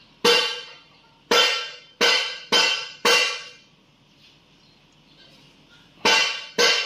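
Seven sharp ringing strikes, each dying away over about half a second: five in the first three seconds, then two more near the end.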